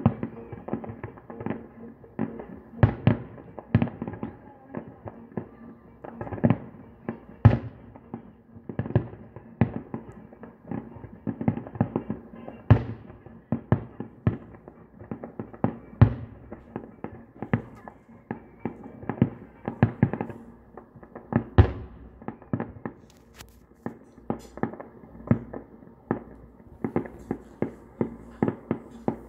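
Distant aerial fireworks display: a quick, irregular run of bangs and crackles, several a second, with louder booms among them.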